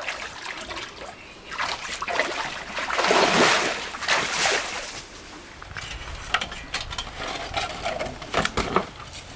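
Water splashing and sloshing in surges, loudest about three to four seconds in, then breaking into scattered sharp splashes.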